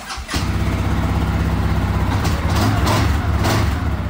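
An engine running at a steady low pitch, with a few short, sharp sounds over the middle of it.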